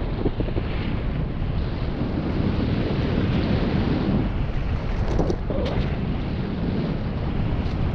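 Wind rushing over the camera microphone with tyres rolling over a dirt singletrack on a fast mountain bike descent, with a few sharp clicks and rattles about five seconds in and near the end.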